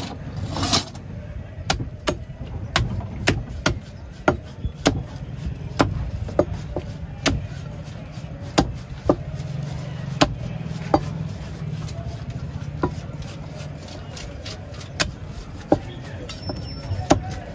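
Cleaver chopping fish on a wooden chopping block: sharp, repeated chops about twice a second, over a low steady rumble.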